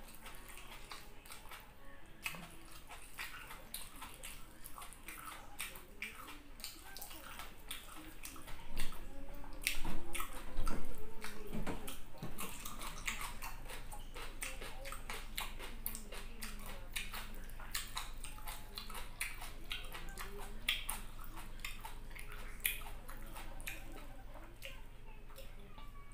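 Close-miked eating by hand: wet chewing and lip-smacking clicks as fried tilapia and rice are eaten, with a louder stretch about nine to twelve seconds in.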